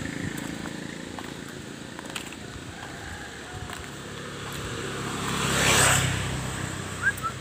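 A motor scooter passing by: its engine and tyre noise swell as it approaches, loudest about six seconds in, then fade as it goes away.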